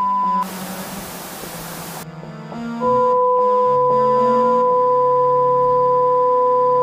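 Electronic keyboard music with a loud steady high beep tone that cuts off about half a second in, followed by about a second and a half of static-like hiss. Quieter notes come next, and from about three seconds in a loud steady two-tone beep holds over a low hum.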